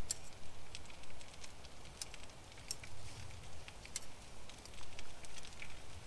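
Open wood campfire crackling with a pan of sausages and mushrooms frying over it: irregular sharp pops and spits, a few a second, over a soft steady hiss.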